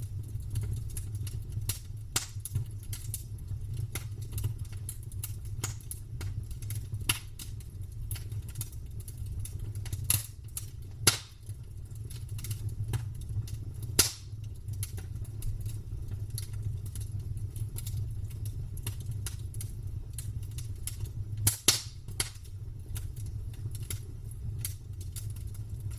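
Campfire crackling: irregular sharp snaps and pops of burning wood over a steady low rumble of the flames, with a few louder pops about 10, 11, 14 and 21 seconds in.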